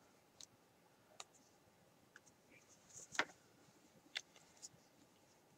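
Faint, scattered clicks and taps from hands working a small metal needle and yarn through knitted stitches. There are about six clicks, the loudest about three seconds in.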